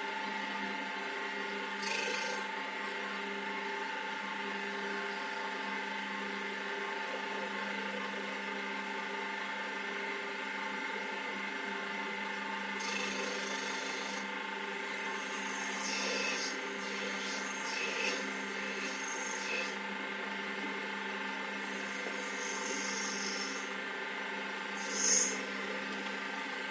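WS-L1550 mini wood lathe running with a steady motor whine. Over it come intermittent scraping bursts as a turning tool cuts the spinning workpiece, the loudest near the end.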